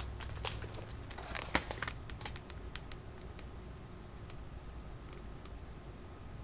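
Faint paper rustling and light clicks of a picture book's pages being handled. They are thickest in the first two seconds and then thin out to a few isolated ticks over a low room hum.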